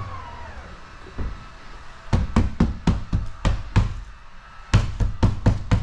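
Rapid knocking from the Tesla Model Y rear hatch as it is shaken or struck by hand, about four knocks a second with a short pause midway, from something loose inside the hatch that the installer takes for broken glass.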